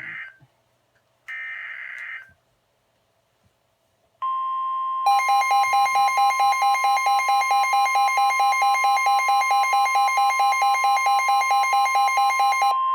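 A burst of NOAA Weather Radio SAME digital data about a second in. About four seconds in the steady 1050 Hz warning alarm tone begins, and a second later a Midland WR-120EZ weather radio's own alert alarm joins it with rapid beeping, about five beeps a second. Together they signal an incoming flash flood warning.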